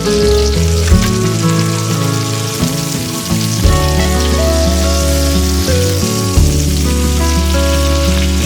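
Food sizzling as it fries in a pan, a steady crackling hiss, with background music playing over it.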